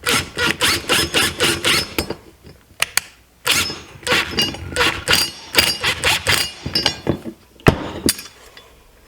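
Allen key turning a bolt on a metal bracket: two runs of quick, repeated metallic clicks, about four or five a second, with one sharp knock near the end.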